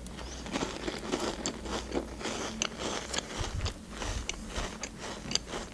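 Chewing and biting a crunchy cracker sandwich biscuit close to the microphone: irregular crisp crunches and clicks throughout.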